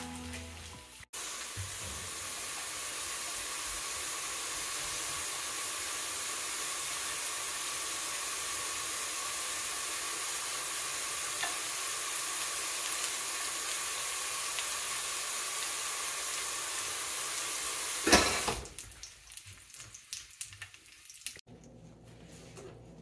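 Shredded cheese frying in a nonstick pan, a steady sizzle that cuts off suddenly near the end, leaving only a few faint clicks.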